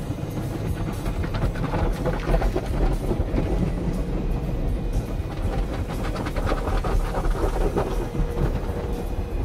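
Automatic car wash heard from inside the car: water jets and cloth brushes hitting the windshield and body over a steady low rumble of the wash machinery, growing busier twice.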